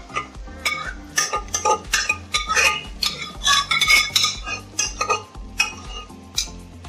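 Metal spoon scraping and knocking against the inside of an aluminium pot as thick mashed vegetables are scraped out into a kadhai: an irregular run of clinks and scrapes, several a second.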